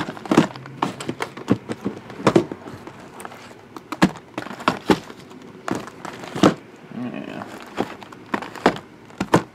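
Sealed cardboard trading-card hobby boxes (Panini 2014 Prizm soccer) being shuffled around a tabletop by hand: irregular knocks and thuds as they are slid, lifted and set down against each other, about a dozen over several seconds.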